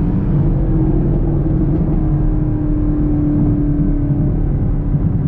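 2021 Chevrolet Camaro SS's 6.2-litre V8 and exhaust heard from inside the cabin, pulling hard under acceleration, its drone rising slightly in pitch and then holding steady.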